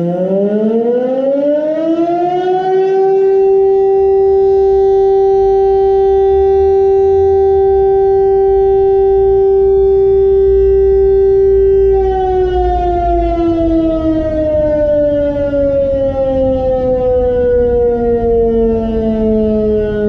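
Fire brigade alarm siren sounding the call-out for the volunteer firefighters. It rises in pitch for about three seconds, holds one loud steady tone, then falls slowly in pitch from about twelve seconds in.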